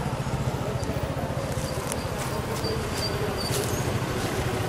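A car driving past close by on the road, its engine running with a steady low hum, with a few short, high chirps above it about halfway through.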